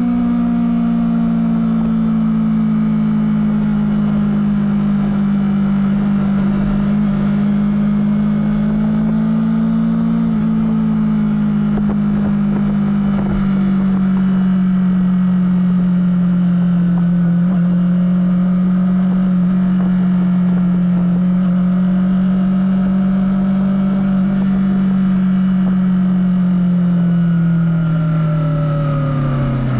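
Honda CBR250RR engine through its stock exhaust, running under way at steady revs with the pitch wavering a little; in the last couple of seconds the revs fall away.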